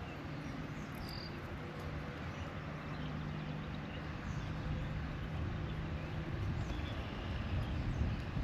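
Outdoor ambience: a steady low hum, such as distant traffic, with a few faint short bird chirps.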